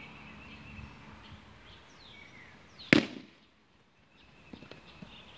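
Birds chirping, then a single loud, sharp smack about three seconds in: a plastic wiffle ball impact during play.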